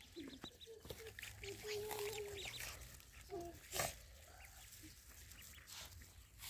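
Ducklings peeping: many short, high chirps in quick clusters, thinning out after the first few seconds. A sharp click about four seconds in is the loudest sound.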